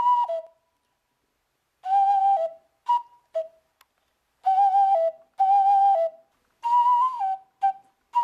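Sazsyrnai, a Kazakh clay ocarina, played in short breathy phrases of a few notes, each stepping down in pitch, with short pauses between them.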